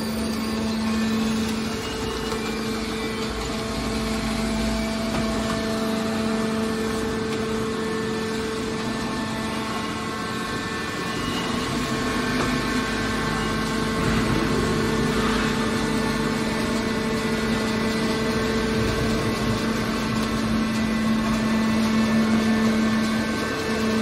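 Hydraulic scrap metal baler's power unit running with a steady hum: a low tone with a higher one above it, over a machine whir.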